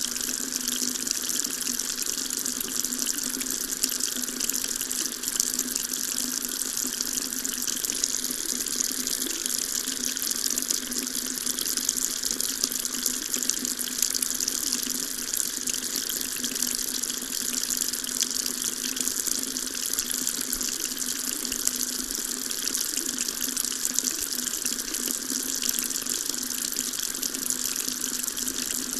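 Water tap running steadily into a sink, a continuous splashing stream with a steady low hum under it.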